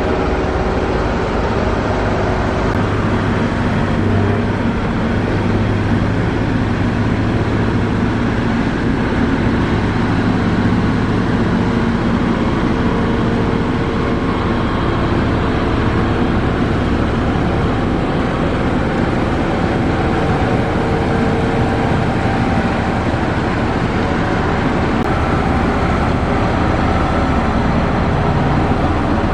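Heavy diesel engine running steadily, a continuous low drone that holds an even level throughout.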